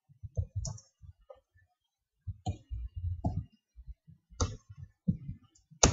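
Irregular clicks from working a computer, about a dozen short ones spread unevenly, the loudest near the end.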